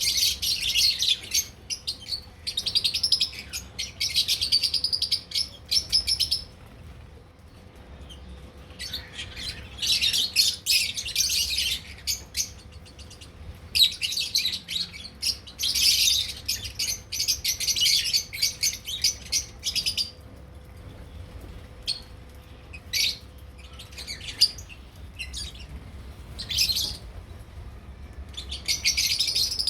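Lovebirds chattering in rapid, high chirps, in bouts of several seconds separated by short pauses with only a few scattered calls.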